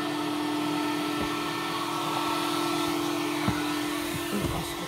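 Car wash vacuum system running steadily: a constant motor hum with rushing air, and a couple of light knocks near the end.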